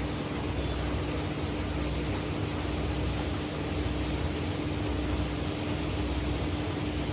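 A steady, unchanging hum with a constant low tone over an even hiss, like a motor running.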